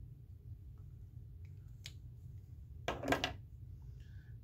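Small makeup items clicking and rattling as they are handled while rummaging through a bag: a single click about two seconds in, then a quick cluster of sharper clicks about three seconds in.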